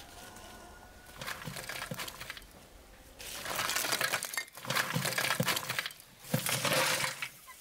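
Lumps of charcoal poured from a metal pail into a clay brazier, clattering and clinking. It starts lightly, then grows loud from about three seconds in, with a brief break near six seconds.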